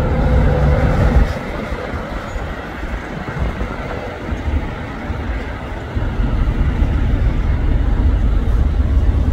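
Jet engines of a climbing Airbus A350 airliner just after takeoff, a steady roar, with gusty wind rumbling on the microphone. The rumble eases a second or so in and swells again about six seconds in.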